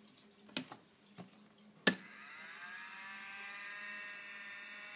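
A few sharp clicks, the loudest about two seconds in. At that moment the small electric motor of a DIY power cross feed on a mini lathe starts up, its whine rising in pitch and then settling into a steady run as it drives the cross slide forward.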